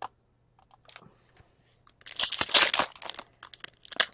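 A foil trading-card pack being torn open by hand. There is a loud rip about two seconds in, followed by crinkling and crackling of the wrapper.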